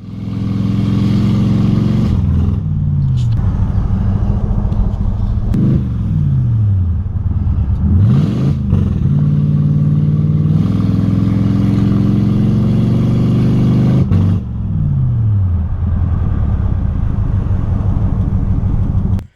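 Ford Crown Victoria Police Interceptor's 4.6-litre V8 running under load while driving. The engine note falls sharply several times and climbs once partway through. The transmission has a failed third gear and is in limp mode, so the car won't go past about 30 mph and sputters when given gas.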